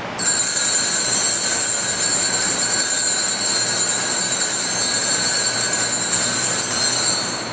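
Consecration bell ringing continuously at the elevation of the host, several high ringing tones sustained at an even level. It starts suddenly and fades away after about seven seconds.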